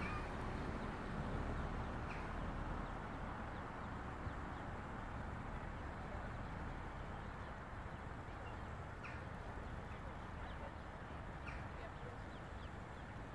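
Outdoor ambience: a steady low rumble of wind on the microphone, faint distant voices, and a few short high chirps.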